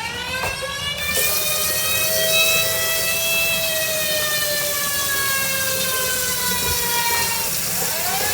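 Siren-type wake-up alarm wailing: its pitch rises quickly, then falls slowly over about six seconds, and starts rising again near the end, with a steady hiss behind it from about a second in.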